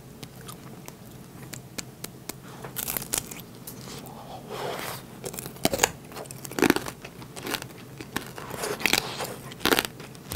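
Close-miked chewing of sugar-glazed cherry-tomato tanghulu: the hard candy shell cracks and crunches between the teeth in irregular bites, with small crackles in between.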